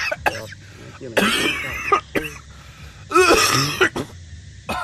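A person coughing: two short bouts about two seconds apart.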